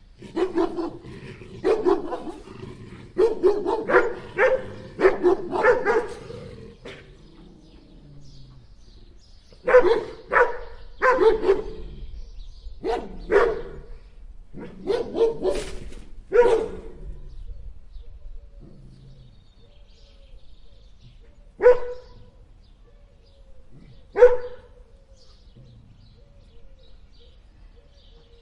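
A dog barking in bouts. There is a quick run of barks over the first six seconds, then single barks spaced about a second apart from about ten to sixteen seconds in, then two lone barks near the end.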